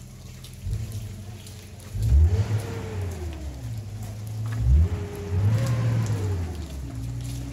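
A vehicle engine running, with deep low rumble, revving up and back down twice.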